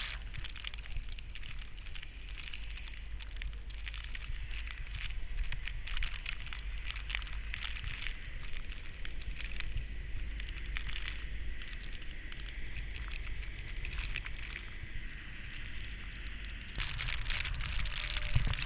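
Crunching footsteps in snow, a run of crackling crunches, growing louder near the end.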